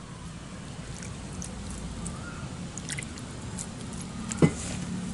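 A hand mixing and tossing spice- and flour-coated snake gourd slices in a steel bowl: soft squishing and rustling with scattered faint ticks, and one sharper tap against the bowl a little before the end.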